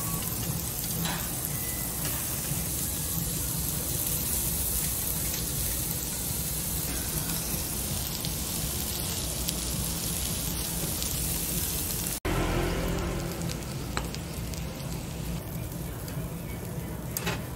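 Pork sizzling as it grills, first pork belly on a slotted dome grill pan, then cubes of pork on a wire grill over charcoal: a steady hiss that breaks off abruptly about twelve seconds in and picks up again.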